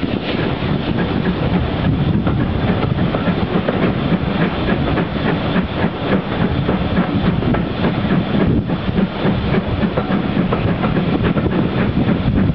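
Passenger train carriage running along the line, heard from an open window: a steady rumble with wheels clicking over the rail joints.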